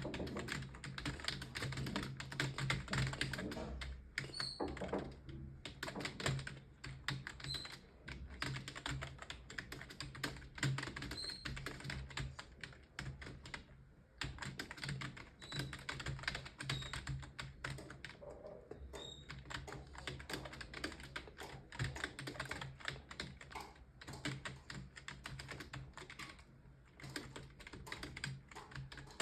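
Computer keyboard being typed on in fast, continuous runs of keystrokes, broken by a few short pauses, over a low steady hum.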